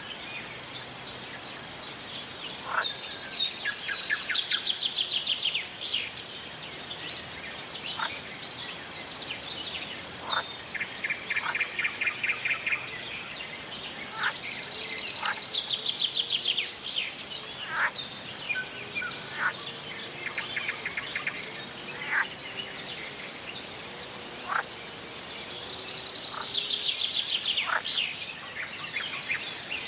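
Wild birds singing: a loud, rapid trilled phrase repeats about every eleven seconds, with a lower buzzy trill between and many short, sharp call notes, over a steady background hiss.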